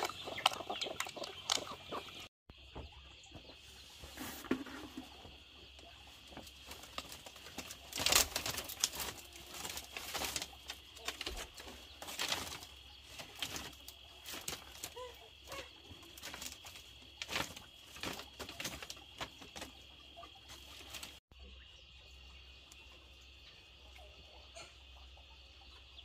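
Farmyard chickens clucking, with wing flaps and scattered sharp knocks, over a steady high-pitched hum.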